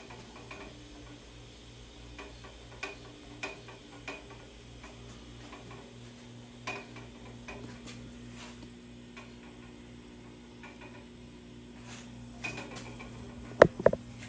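1988 Emglo twin-head electric air compressor running: a steady hum with an even pulsing about three times a second, with scattered light clicks and a sharp double knock near the end. The unit is one that, by the facility mechanic's account, runs constantly and can't keep up with the building's air demand.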